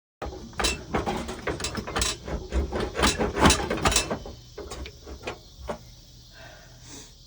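Ratchet wrench clicking in quick, irregular strokes with metallic knocks while working transmission fasteners under a vehicle. It is dense for about four seconds, then thins out to a few scattered clicks.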